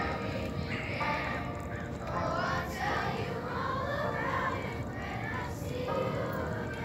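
A large group of schoolchildren singing together along with recorded music.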